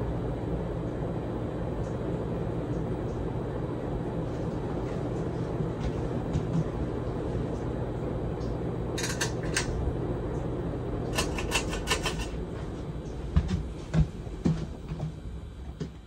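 Hunter Original 52-inch ceiling fan with a PSC motor and four blades running steadily, giving a low hum and whoosh. Two short runs of clicks come partway through, then a few thumps near the end as the sound drops away.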